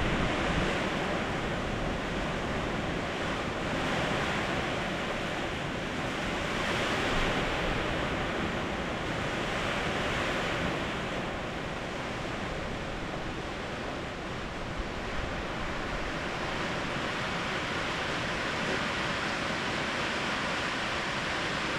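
Steady rain and wind noise, swelling and easing gently every few seconds.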